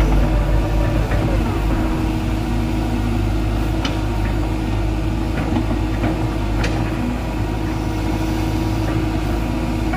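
Heavy diesel engine running steadily at a low, even speed, with two short clicks about four and seven seconds in.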